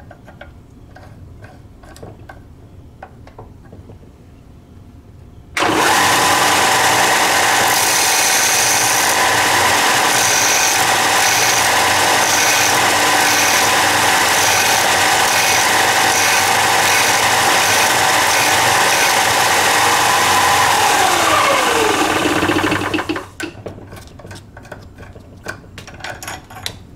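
Ryobi belt sander with an 80-grit belt starts suddenly about six seconds in and runs steadily, grinding the second cutting lip of a drill bit held in a General 825 sharpening jig. A faint even ticking sounds through the grinding. Near the end the motor whines downward in pitch and stops, leaving the light clicks of the jig being handled, which also come before the sander starts.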